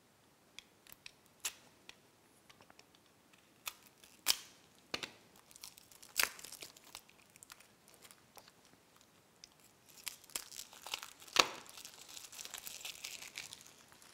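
Clear plastic shrink-wrap being slit with a blade and peeled off a small plastic case: scattered sharp crackles and tearing, growing into a denser stretch of crinkling about ten seconds in.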